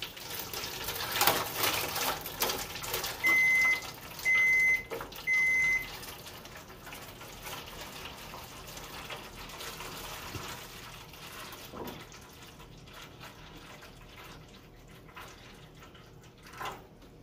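Hot water poured from a plastic pitcher into a foil roasting pan for a water bath, splashing and trickling, then easing off over the last several seconds. About three seconds in come three short, high electronic beeps about a second apart, louder than the pouring.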